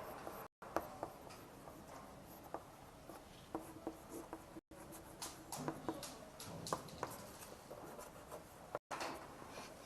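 Faint scratching and light tapping of someone writing by hand, in a series of short strokes; the sound drops out to dead silence briefly three times.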